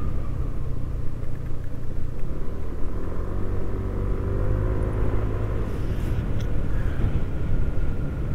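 Ride noise from a Yamaha NMAX 155 scooter on rough, uneven pavement: a steady low rumble of engine, tyres and wind. An engine drone swells for a few seconds in the middle.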